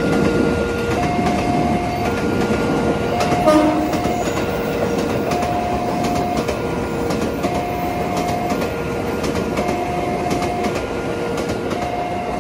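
Electronic railway level-crossing warning siren alternating between a low and a high tone, each held about a second, over the rumble and clatter of a passing train. A brief louder tone sounds a few seconds in.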